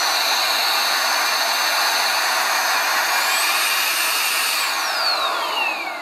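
Baseus A3 cordless handheld car vacuum cleaner running, with a rush of air and a high motor whine. About three seconds in the whine steps up in pitch as it goes to its higher speed. Near the end it is switched off and the whine falls away as the motor spins down.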